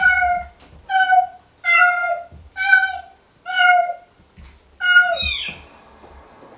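Cat mewing: six short, high-pitched mews in a steady series about one a second, the last one longer and ending in a higher rising-and-falling cry.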